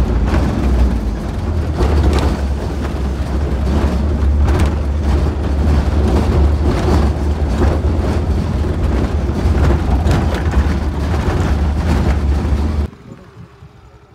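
Vehicle driving on a rough dirt road, heard from inside the cabin: a loud, steady low rumble of engine and road with scattered knocks and rattles from the jolting. It cuts off suddenly near the end.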